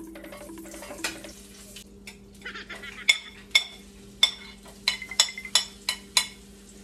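Metal knife and ladle clinking about nine times in quick succession, sharp and ringing, as chopped onion and garlic are scraped off a plate into a wok, starting about halfway through. Before that, butter melting in the wok with a faint sizzle.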